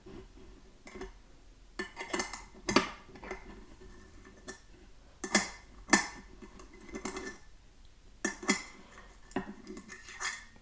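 Metal clinks and scrapes of a wrench working the safety valve loose from a Hawkins pressure cooker lid: scattered knocks, some in quick pairs, a second or two apart.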